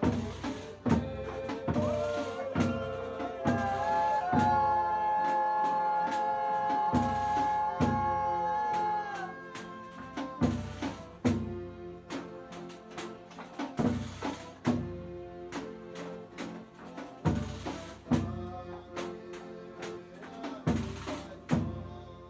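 Folia music: a drum beats a steady pulse through the whole stretch, with several long held notes sounding together over it for a few seconds in the first half.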